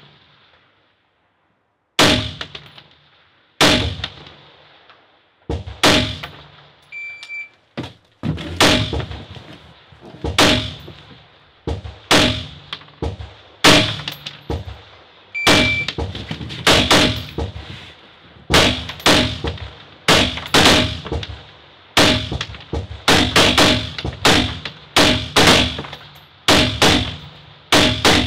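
Semi-automatic rifle shots fired from prone, each a sharp crack with a short ringing tail. A few widely spaced shots come first, then from about eight seconds in a fast, overlapping run of shots, one to two or more a second.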